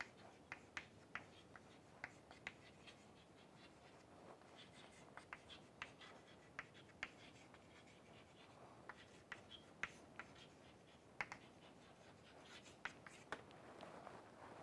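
Chalk writing on a chalkboard: faint, irregular sharp taps and short scratches as letters are formed, stopping about a second before the end.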